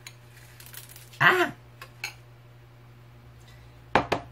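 Metal spoon clinking against a cereal bowl: a few light clicks, then two sharp taps in quick succession near the end. A man's short "ah!" about a second in.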